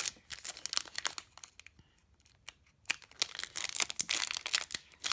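Foil wrapper of a Pokémon card booster pack crinkling and crackling as it is worked open by hand, a pack that resists being opened. The crinkling eases off for about a second and a half near the middle, then comes back dense.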